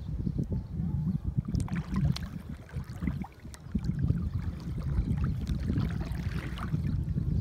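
Wind buffeting the microphone in an uneven low rumble, with small splashes and water lapping at the sea surface crackling through it.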